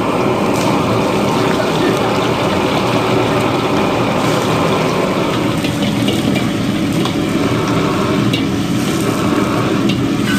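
Steady roar of a commercial wok stove's gas burner at full flame, with food sizzling in the wok. A few light clinks of a metal ladle against the wok come near the end.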